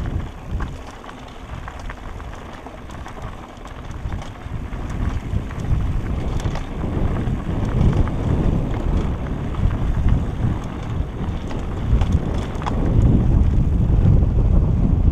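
Wind buffeting a helmet-mounted camera's microphone as a mountain bike rolls down a loose gravel track, with tyre crunch and scattered clicks and rattles. The wind noise grows louder from about four seconds in.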